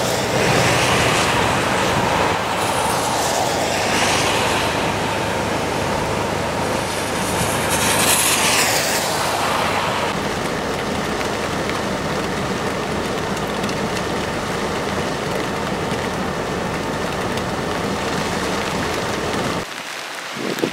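Traffic on a rain-soaked road: a convoy of utility bucket trucks and cars driving past, engines running under a steady hiss of tyres on wet pavement, swelling louder as vehicles pass in the first half. Near the end the sound cuts suddenly to quieter wind and rain.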